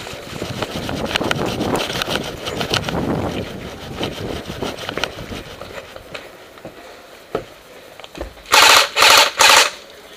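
An airsoft electric gun firing three short full-auto bursts near the end, the loudest sound here. Before that comes a busy stretch of rapid clattering and rustling that fades after about five seconds.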